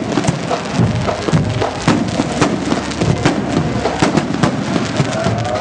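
A string of firecrackers going off in a rapid, irregular run of sharp pops, with music playing underneath.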